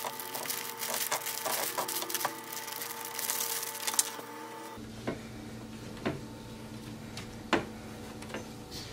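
Allen key unscrewing a metal Allen-head bolt from a wooden crib rail: rapid small clicks and scraping of metal on metal and wood. After about five seconds come a few separate light knocks as the loosened bolt and rail are handled.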